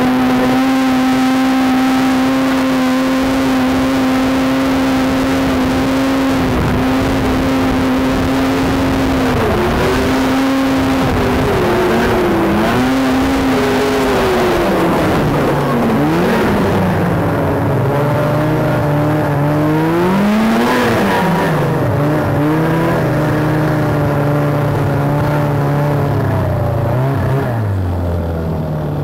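Arctic Cat ZR700 snowmobile's two-stroke engine at full throttle on a hill climb, holding steady high revs for about ten seconds. The revs then fall and rise several times, surge once more about two-thirds of the way through, and drop as the throttle eases off near the end.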